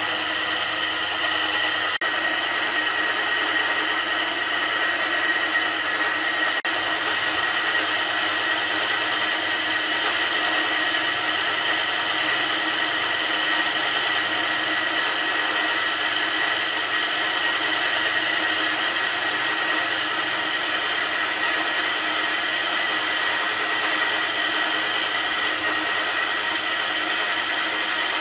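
Wire brush wheel spinning on an electric motor's shaft, cleaning small rusty metal parts held against it: a steady scratchy hiss with a steady high whine.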